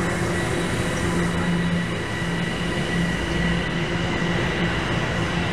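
Toronto TTC subway train running: a steady rumble with a constant low hum and a thin high whine over it.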